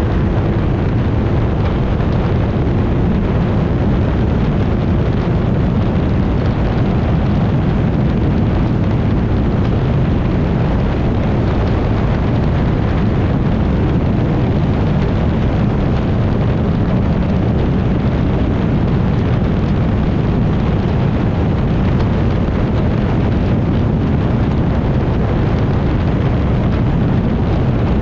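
Mercury 60R outboard running steadily at speed on a small tunnel-hull boat, mixed with rushing water and heavy wind buffeting the microphone.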